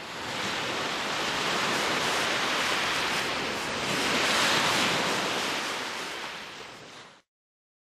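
Small lake waves washing up onto a sandy shore: a steady rush of surf that swells to its loudest a little past the middle, then fades and cuts off abruptly about seven seconds in.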